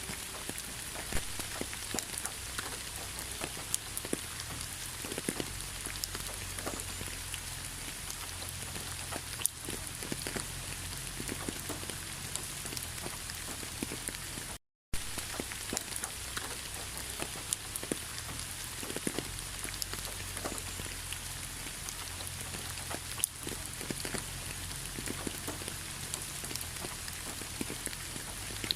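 Steady rainfall with many single drops clicking sharply through it, over a low rumble. The sound cuts out for a split second about halfway through.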